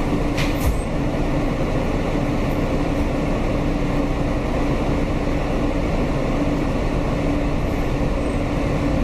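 New York City subway train running, a steady rumble with a constant hum, heard from inside the car. A brief sharp click about half a second in.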